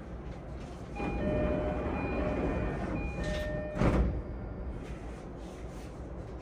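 E233-1000 series commuter train's door-closing chime sounding twice while the sliding doors close, ending in a loud thump as the doors meet about four seconds in. Steady low hum of the stopped train's interior underneath.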